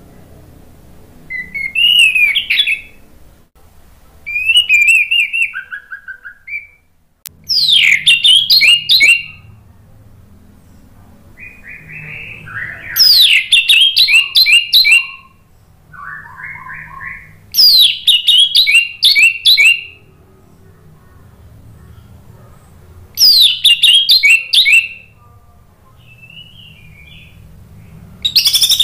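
Orange-headed thrush singing: loud phrases every few seconds, each opening with a falling whistled sweep and running into a quick string of repeated notes, with softer short notes between phrases.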